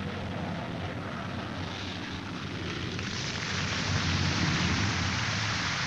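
Jet aircraft roar, a dense rushing noise over a deep rumble that swells louder about three seconds in.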